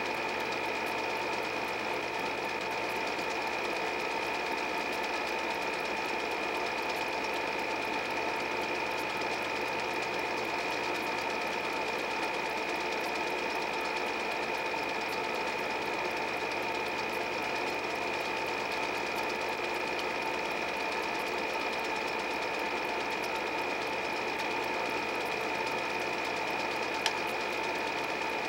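8 mm film projector running: a steady mechanical whirring with a constant high whine, and a couple of small clicks near the end.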